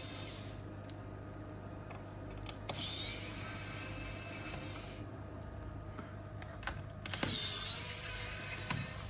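Small electric precision screwdriver whirring as it backs out laptop heatsink screws: two runs of about two seconds each, with a slight whine that shifts in pitch as the motor spins, plus the end of an earlier run right at the start.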